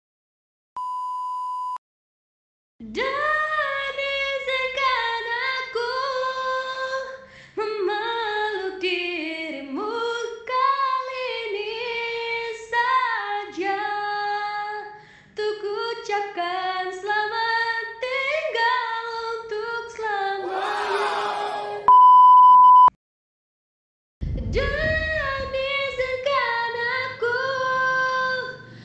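A young woman singing unaccompanied in a high voice. A short steady beep sounds just before she starts, and a louder beep cuts in about 22 seconds in, after which she starts singing again.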